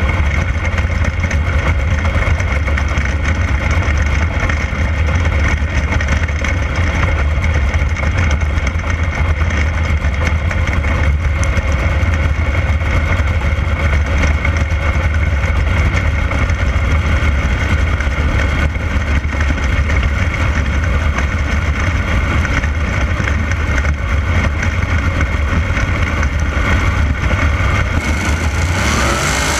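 A 360 sprint car's V8 engine running steadily on track, heard from a camera mounted in the cockpit, over a heavy low rumble. The engine pitch shifts near the end.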